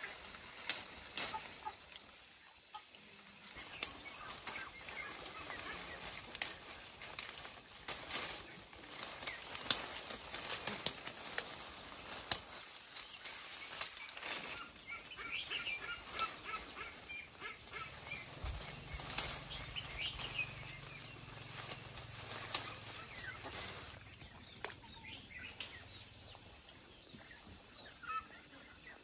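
Birds calling against a steady high-pitched insect drone, with scattered sharp snaps and clicks, and a low hum for a few seconds past the middle.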